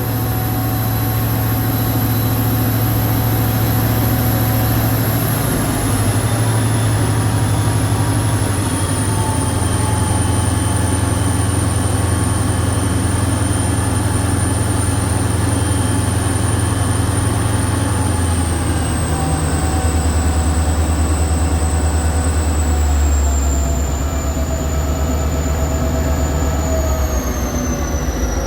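Victorian Railways C class diesel-electric locomotive C501, with its EMD 16-cylinder two-stroke engine, running hard with a steady low drone. The drone shifts a couple of times, and a high whine slowly falls in steps as the engine eases back.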